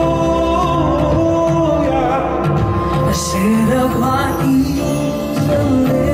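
Live band playing a slow ballad passage without lyrics, with sustained chords and a gliding melody line. About three seconds in there is a shimmering sweep across a rack of bar chimes.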